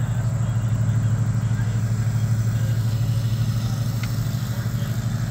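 A vehicle engine idling close by: a steady, low drone with an even pulse.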